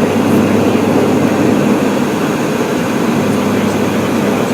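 Steady roar of an airliner's engines and airflow heard inside the passenger cabin, a continuous low rumble with an even hum underneath.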